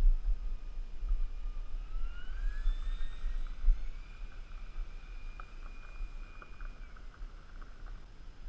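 Faint whine of a radio-controlled T-45 electric ducted-fan jet model flying at a distance, over gusty wind rumble on the microphone. The whine rises in pitch between about two and four seconds in, holds, then falls away near the end.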